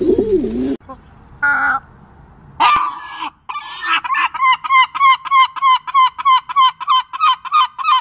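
Feral pigeons cooing, cut off less than a second in, then a blue-winged kookaburra calling: a few harsh calls, then a fast cackling run of repeated notes, about three a second.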